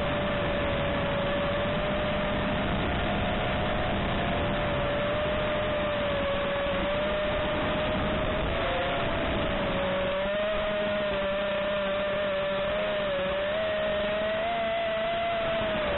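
FPV quadcopter's motors whining steadily over a constant rush of propeller and wind noise, the whine's pitch wavering slightly up and down with throttle.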